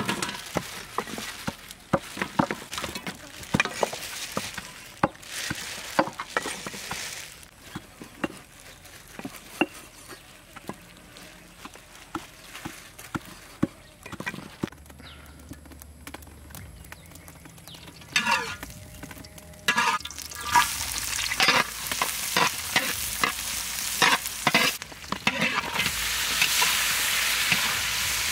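Food sizzling in hot oil in a pan, with the clicks and knocks of a utensil stirring. The sizzle grows louder and denser over the last several seconds.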